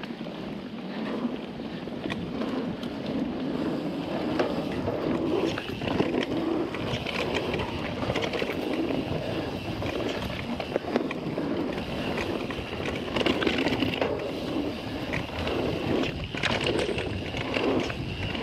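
Guerrilla Gravity MegaTrail mountain bike rolling fast down a dirt singletrack: steady tyre noise on the dirt, broken by frequent small knocks and rattles from the bike over bumps.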